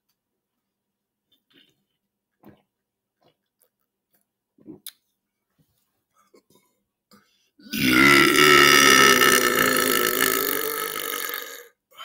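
A man's long, loud belch, pushed out as loud as he can, starting about eight seconds in and held for about four seconds, fading a little near its end. Before it there are only a few faint clicks, as he drinks from a bottle.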